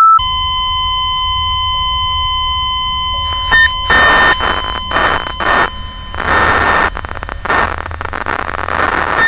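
An electronic sound effect: a steady beep-like test tone with a low hum for about four seconds, then bursts of loud static noise over a high whine.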